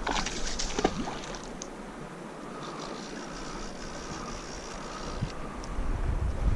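River water rushing steadily. A few sharp clicks come in the first second and a half, and from about five seconds in, wind buffets the microphone.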